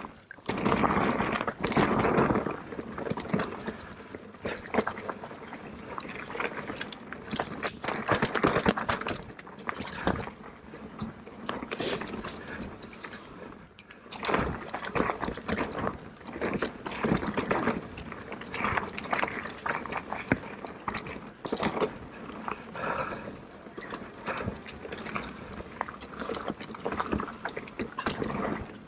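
Electric mountain bike riding down a dirt trail: tyres rumbling over dirt and roots, with irregular knocks and rattles from the bike over bumps, louder in rough stretches.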